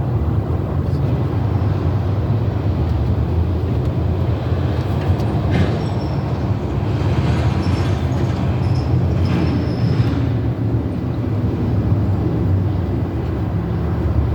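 Steady low mechanical rumble throughout, with a few faint metallic clicks about five to ten seconds in as bolts are started into a drum-brake wheel cylinder.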